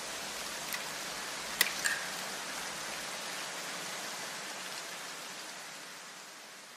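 A few sharp plastic clicks, three in the first two seconds with the second the loudest, from the Lego rifle's mechanism being worked by hand, over a steady hiss that fades out near the end.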